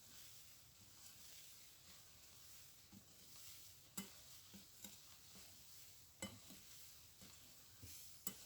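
Quiet hand stirring of cake batter and flour in a mixing bowl, with a few light taps of the utensil against the bowl in the second half.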